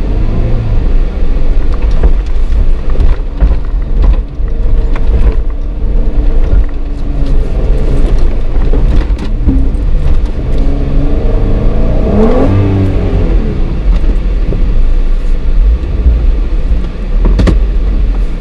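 Off-road vehicle's engine pulling slowly over a rough sandy track, its pitch rising and falling with the throttle and swelling in a rev about twelve seconds in. A few sharp knocks come through as it jolts over the ruts.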